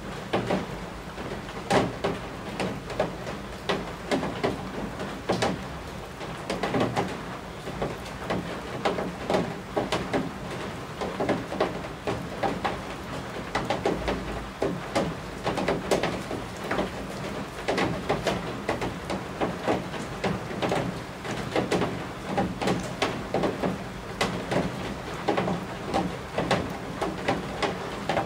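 Rain striking roof eaves: a steady hiss of rainfall with many irregular, louder drops knocking close by.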